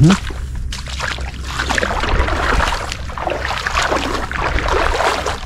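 Water sloshing and splashing irregularly as a person wades through shallow lagoon water, growing denser after about a second.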